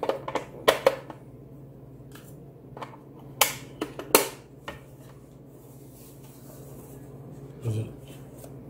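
Sharp plastic clicks and knocks, about half a dozen spread over the first four seconds, as two batteries are fitted into a digital kitchen scale's battery compartment and the scale is handled.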